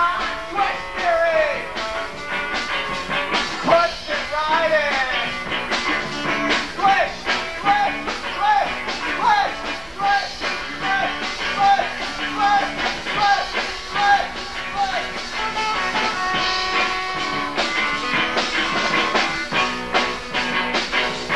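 A live rock band playing, with drums throughout and a run of short, bending lead notes through the middle.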